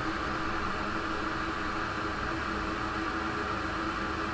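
A steady mechanical hum with an even hiss, like a small fan running, with no distinct clicks or knocks.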